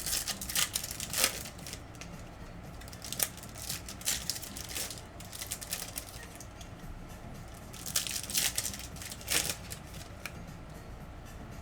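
Plastic wrapping on a hobby box of trading cards being torn and crinkled by hand. It comes in several short bunches of crackles, near the start, a few seconds in, and again about eight seconds in.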